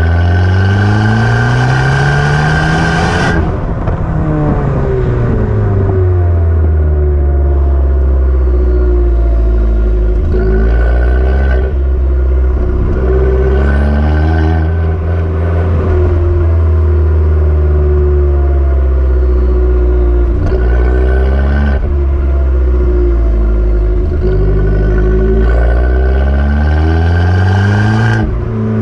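Abarth 595 Turismo's stock turbocharged 1.4-litre four-cylinder engine being driven, its revs climbing and dropping several times, with a few brief sharp knocks along the way.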